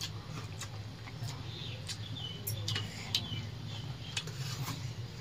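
People eating rice and curry by hand from steel plates: scattered soft clicks and wet squelches of fingers mixing rice against the metal plates and of chewing, over a steady low hum.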